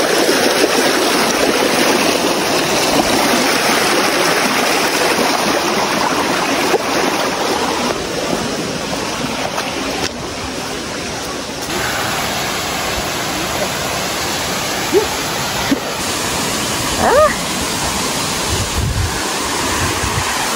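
Mountain stream rushing over rocks in small cascades, a steady loud rush of water, with a few short rising chirps about three-quarters of the way through.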